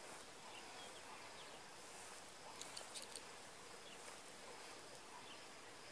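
Near silence: faint outdoor background with a few soft high chirps and a brief cluster of soft clicks a little under three seconds in.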